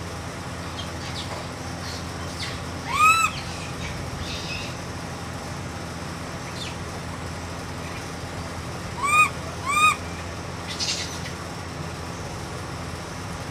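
Baby macaque monkey giving short rising-and-falling coo calls: one about three seconds in, then two in quick succession near nine seconds, over a steady low hum.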